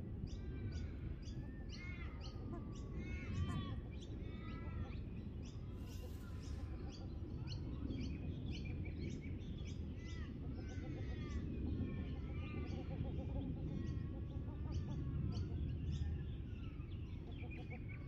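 Birds chirping and calling, with repeated rising-and-falling chirps and rapid short high notes, over a low steady rumble.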